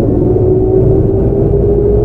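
Kintetsu 5800 series train's Mitsubishi GTO-VVVF inverter whining in several steady tones that slowly rise in pitch as the train gathers speed, over the rumble of wheels on rail.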